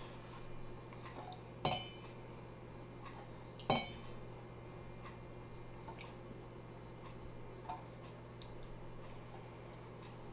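Stainless steel bowl clinking twice, about two seconds apart, each with a short metallic ring, amid faint handling taps as glaze is spread on fish by hand.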